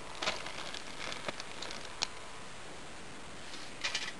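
Fire burning in a small homemade camp stove, with scattered sharp pops and crackles over a steady hiss, and a short burst of rustling near the end.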